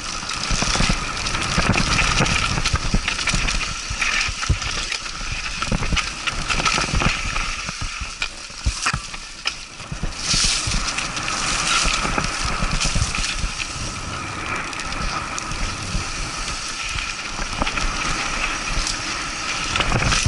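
Mountain bike riding down a dry dirt trail: tyres crunching over dirt and dry fallen leaves, with frequent knocks and rattles from the bike over bumps.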